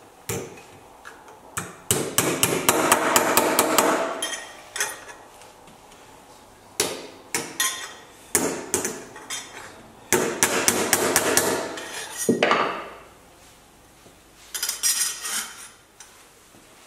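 A hammer striking a sheet-metal repair panel clamped in a bench vise, bending and shaping it over the vise jaws. The blows come in several quick runs, with a few single strikes and short pauses between.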